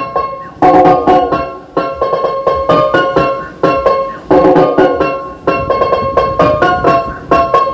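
Loud plucked-string music, guitar-like notes in phrases that start sharply and fade, played through a Storm Quake 15-inch 2000-watt speaker during a sound test.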